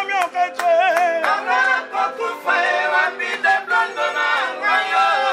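Voices singing together over a musical backing, with held accompaniment notes beneath the melody.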